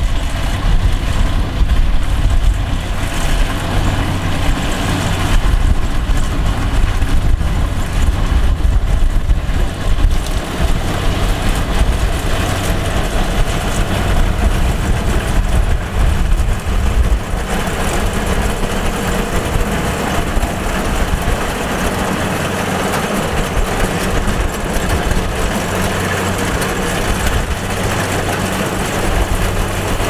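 Kubota DC-70 rice combine harvester's diesel engine running steadily as the machine cuts rice. The sound turns brighter and fuller a little past halfway.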